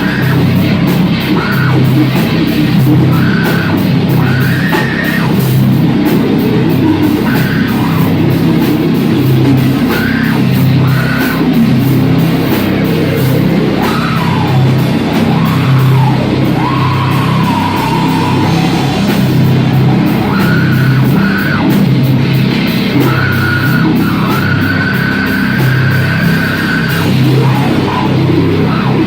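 Live rock band playing loud, heavy, guitar-driven rock, with electric guitar, bass and drums going steadily throughout and cymbals striking in a regular rhythm.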